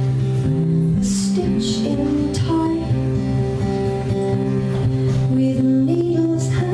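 Live acoustic band music: a woman singing over a strummed acoustic guitar, bass guitar and keyboard, playing steadily.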